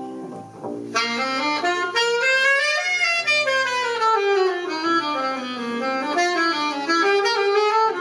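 Jazz band playing: plucked upright bass notes alone at first, then about a second in a horn comes in loud with a long line that sweeps up, falls back down, and climbs again near the end.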